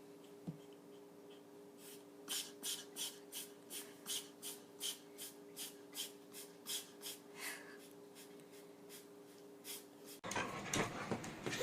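An animal breathing in a quick, even series of noisy puffs, about three a second for several seconds, over a steady electrical hum. A louder, noisier sound cuts in near the end.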